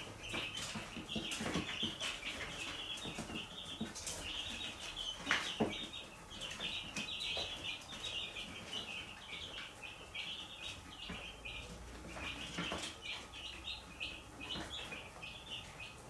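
A brood of young chicks peeping continuously, many short high peeps overlapping, with occasional sharp taps and rustles among them.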